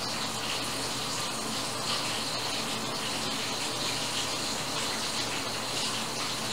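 A steady, even rushing noise with no distinct events, of the kind a running tap or an electric fan makes.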